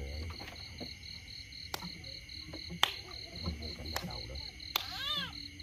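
Night insects chirping in a steady high pulsing trill of about four or five pulses a second. A few sharp clicks and knocks break in, and a short call rising and falling in pitch comes about five seconds in.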